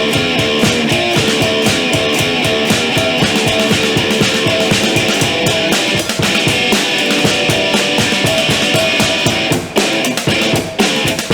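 Rock band playing live: electric guitar over fast, steady drum-kit beats, with two short breaks in the playing near the end.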